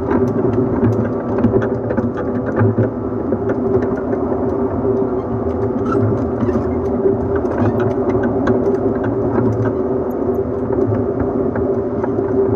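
Steady MT54 traction motor whine of a JNR 115 series 1000-subseries electric train, heard from inside its motor car at steady speed, under the rumble of the wheels on the rail. The whine holds a constant pitch, with scattered short clicks throughout.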